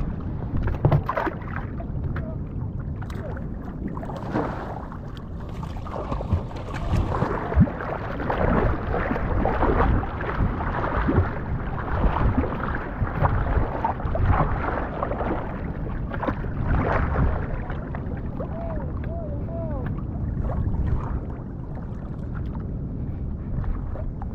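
Seawater sloshing and splashing close to the microphone in rough surf, irregular and continuous over a steady low rumble.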